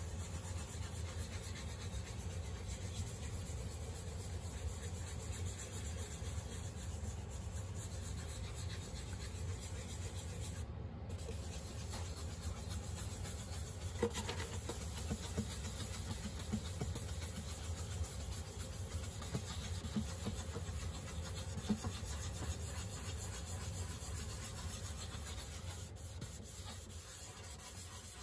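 A dye-soaked cloth pad rubbed over the wooden top of an acoustic guitar, a soft continuous scrubbing that works dye in for a sunburst finish, with a few light knocks. A steady low hum runs underneath.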